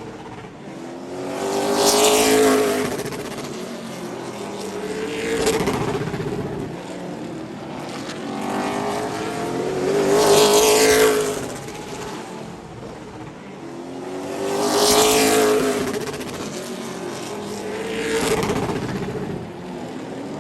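Race car engines lapping a quarter-mile short oval during practice, passing about five times. Each pass swells up to a peak and then drops in pitch as the car goes by.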